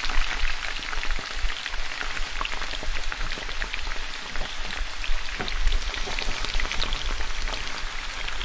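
Besan-batter-coated bread slice sizzling in ghee on a hot tawa: a steady crackle of many tiny pops.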